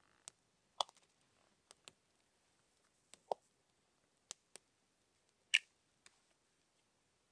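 Dry twigs crackling and snapping as a newly lit campfire is fed with kindling: a sparse run of about nine sharp pops, the loudest about five and a half seconds in.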